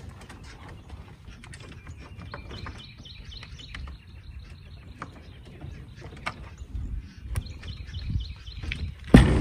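Birds chirping over the rattle and clicks of a wooden chicken coop's door latch being worked. About nine seconds in comes one loud thump as the coop's ramp door drops open.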